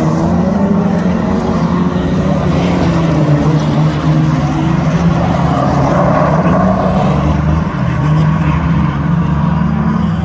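Speedway sedan race car engine running hard on a dirt track. Its pitch rises and falls as the throttle comes off and back on, with brief dips about four seconds in and again near eight seconds.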